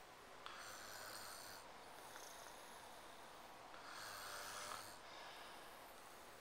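People snoring in their sleep: two faint snores, one about half a second in and another about four seconds in, with quiet breathing between.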